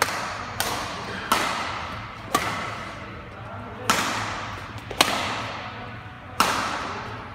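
Badminton rackets hitting a shuttlecock back and forth in a doubles rally: seven sharp cracks at uneven intervals, each ringing on in a long echo from the large hall.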